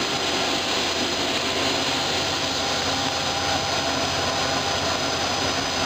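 Steady machine noise from a WPC (wood-plastic composite) extrusion line running: an even hum and hiss with faint steady tones, constant throughout.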